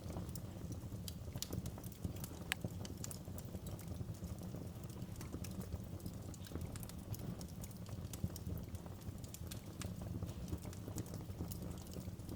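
Wood fire crackling: irregular sharp pops and snaps over a low, steady rumble of burning.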